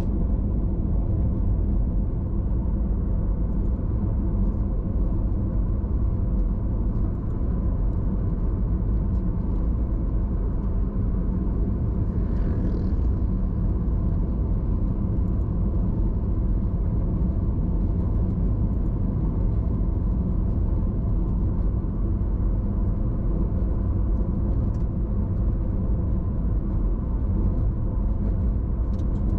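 Car driving along a road: a steady rumble of engine and tyres that stays even throughout.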